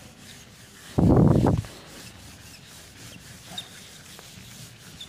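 A whiteboard being wiped clean by hand, the rubbing strokes scraping softly across the board, with one louder swipe about a second in.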